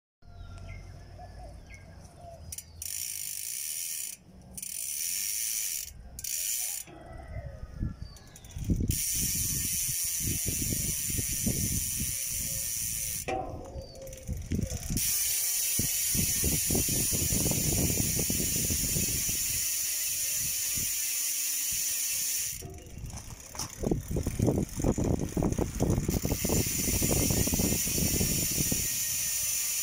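Race Face Vault rear hub (120 points of engagement, XD freehub) freewheeling, its pawl ratchet giving a high-pitched buzz. It comes in several short spins over the first few seconds, then in longer runs broken by two pauses.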